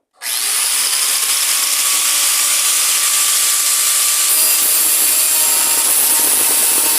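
Electric angle grinder running with its disc working metal: a loud, steady, hissing grind that starts abruptly and shifts slightly in tone about four seconds in.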